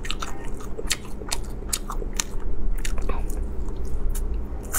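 A person biting and chewing spicy roasted chicken on the bone close to the microphone: many sharp, irregular clicks of teeth tearing and chewing the meat.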